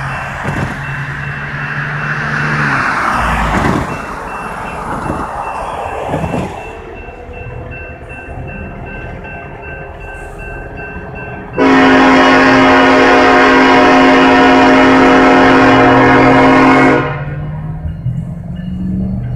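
A car swishes past over the crossing while the crossing bell dings steadily. About twelve seconds in, the approaching Norfolk Southern freight locomotive sounds its multi-chime air horn in one long blast of about five seconds, the loudest sound here.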